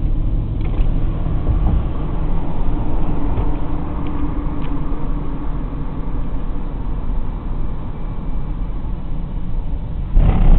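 Car engine and road rumble heard from inside the vehicle as it rolls up to a railroad crossing, steady and low. A louder rushing burst comes near the end.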